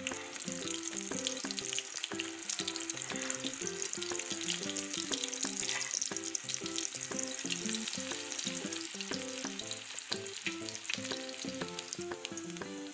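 Chicken kebab patties frying in hot oil, a steady sizzle dense with fine crackles. A melodic background music track plays under it.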